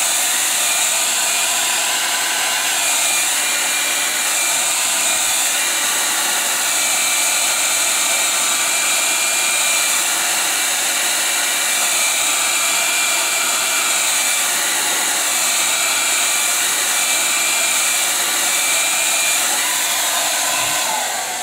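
Red handheld hair dryer blowing steadily, with a thin high whine from its motor that drops out near the end. The pitch of the air rush sways as the dryer is moved back and forth over the glued lace at the hairline.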